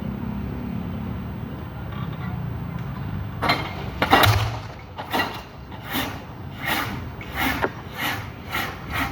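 An excavator running with a steady low rumble, then from about a third of the way in its bucket knocking concrete piles into a riverbank: about nine sharp knocks, roughly one every 0.7 seconds.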